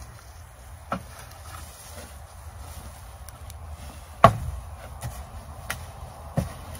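A garden rake scraping and digging through a compost pile of wood chips and shavings, with a few sharp knocks as the tines strike, the loudest about four seconds in.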